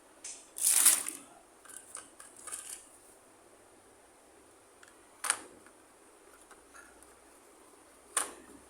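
Handling during a toy unboxing: a burst of crinkling and rustling near the start, then softer rustles, then two sharp, separate clicks, the sound of small plastic toy pieces or packaging being handled and set down.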